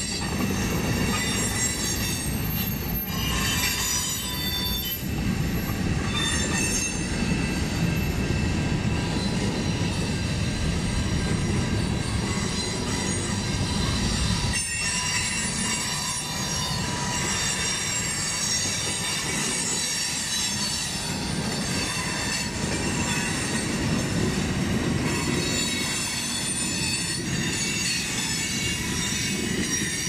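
Freight train of gondolas and tank cars rolling past at close range: a steady rumble of wheels on rail, with high squealing tones from the wheels above it.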